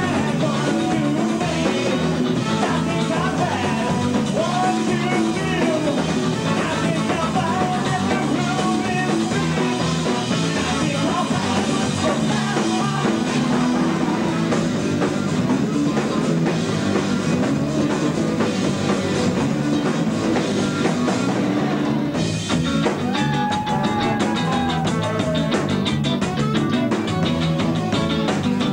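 Ska-punk band playing live: electric guitars, bass and a drum kit, with singing. There is a short break about three-quarters of the way through, then the band comes straight back in.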